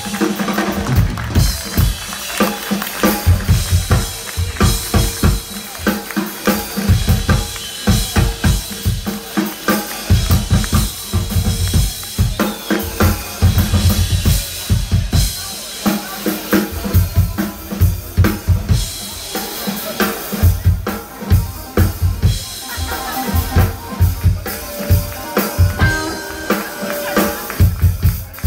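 Live drum kit played hard, kick drum and snare with rimshots to the fore, in a drum-led stretch of a blues band's set with the guitar pulled well back.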